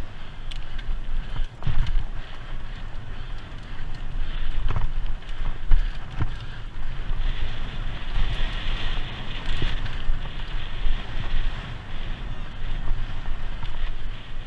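Cyclocross bike riding over a bumpy dirt track: wind buffeting the bike-mounted camera's microphone, with a steady low rumble, a tyre hiss that swells about halfway through, and scattered knocks as the bike jolts over the ruts.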